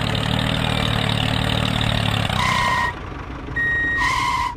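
Small tractor engine idling steadily, then cutting out about three seconds in. Two short electronic beeps come about a second and a half apart, like a vehicle's reversing beeper.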